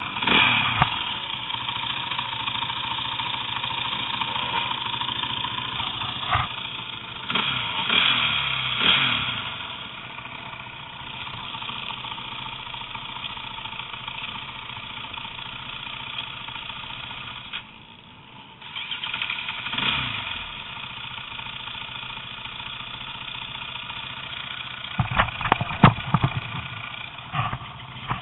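A vehicle engine running steadily, swelling briefly a few times, with a cluster of sharp clicks near the end. The engine makes a noise that the owner considers bad.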